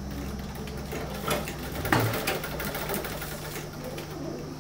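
Old black sewing machine stitching cloth, its mechanism clattering in rapid ticks, loudest about two seconds in.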